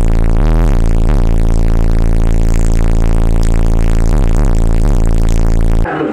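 A car audio system's subwoofers playing a sustained, extremely loud low bass note, with a few short pitch slides. It cuts off sharply about six seconds in.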